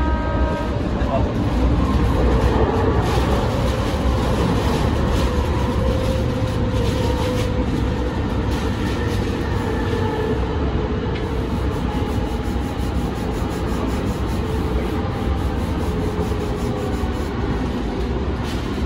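Siemens light-rail trolley running along the track, heard from inside the cab: a steady rumble of wheels on rail, with a faint electric motor whine that drifts slowly lower in pitch and scattered light clicks.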